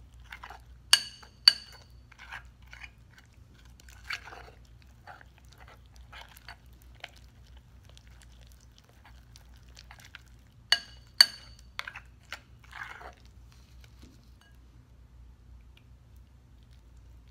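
A metal tablespoon stirring liquid starch into sticky glue slime in a bowl, making wet squelching and smacking noises. Twice, about a second in and again near eleven seconds, the spoon strikes the bowl in a quick ringing double clink.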